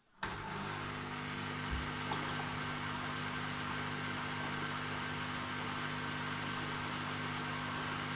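Samsung washing machine suddenly starting a steady humming drone over a rushing noise, the unusual noise that the owner finds weird.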